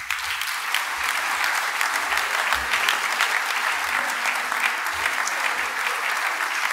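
Audience applauding, starting abruptly and continuing steadily as a dense mass of claps.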